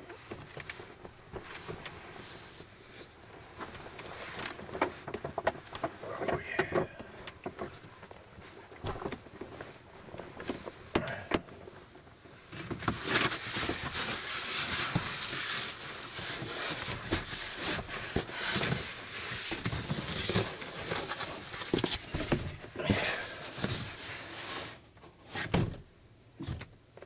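Rustling of blankets and bedding with scattered knocks and bumps as someone settles into bed in a van. The rustling is loudest about halfway, and a few heavier knocks come near the end.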